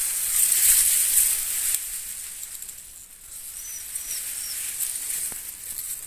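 Rustling and handling noise as the phone moves through foliage, loudest in the first two seconds, then three short high chirps from a bird about halfway through, followed by a faint tick.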